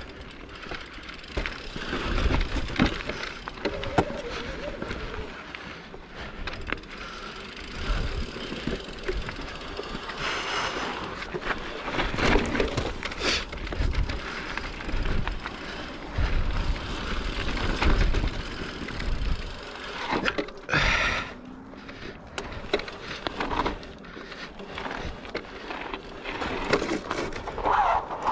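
Mountain bike ridden on a loose dirt trail: tyres rolling and the bike rattling over bumps, in uneven surges with frequent sharp knocks.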